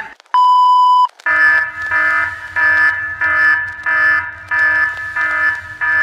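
A single steady high beep lasting under a second, followed by a harsh, buzzy alarm tone that pulses about one and a half times a second. This is a mock emergency-alert attention signal, made to look like a TV emergency alert test.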